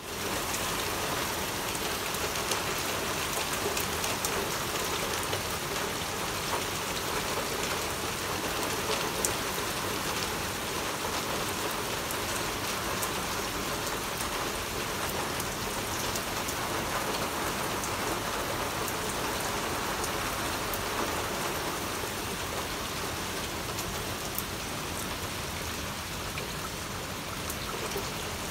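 Steady rain falling, an even hiss with scattered drops tapping close by.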